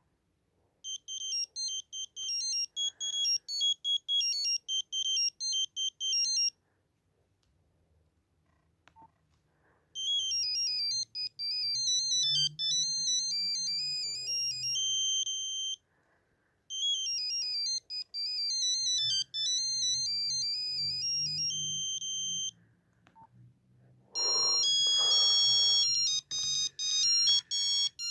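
Nokia 8265i mobile phone playing a series of ringtones through its speaker, one note at a time: a fast run of short beeps, then a tune played twice, then another tune with longer held notes starting near the end. Faint key clicks fall in the gaps between tunes.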